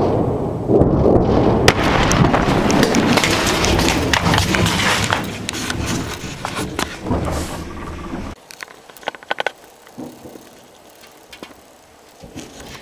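The rolling rumble of a powerful explosion, with sharp cracks and crackling through it, cut off suddenly about eight seconds in; scattered clicks and knocks follow.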